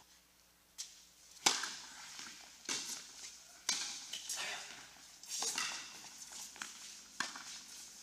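A doubles tennis rally on an indoor hard court: the ball is struck by rackets and bounces, a sharp pop roughly once a second, each echoing in the hall, with the players' shuffling footsteps between hits.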